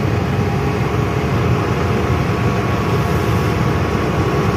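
Truck engine running with a steady low hum as the truck, loaded with about 10 tons, moves off slowly.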